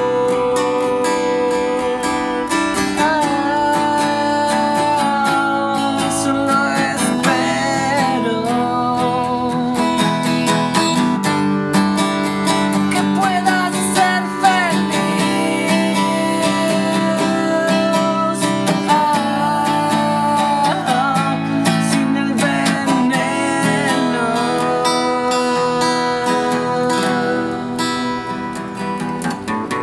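Steel-string acoustic guitar (a Fender) strummed steadily, playing a song's chord progression, with a man's voice singing over it at times.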